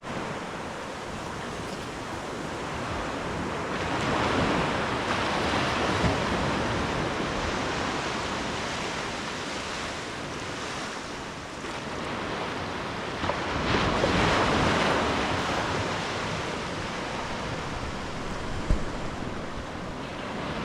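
Ocean waves washing ashore in a steady surf, with two larger waves building and breaking, one about four seconds in and one about fourteen seconds in. A brief thump near the end is the loudest moment.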